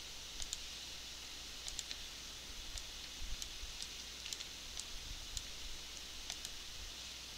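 Computer mouse clicking now and then, about a dozen light, irregular clicks over a steady faint hiss.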